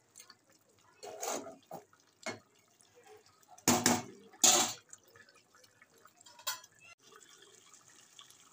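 Several short knocks and scrapes of a cooking utensil against a karahi of simmering chicken curry, the two loudest about four seconds in, with faint liquid bubbling between them.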